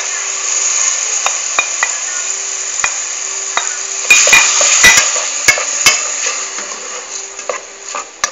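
Diced tomato sizzling as it drops into hot oil with fried onion and garlic in a pot. A wooden spoon scrapes the tomato off a plate and knocks against the plate and pot several times about halfway through.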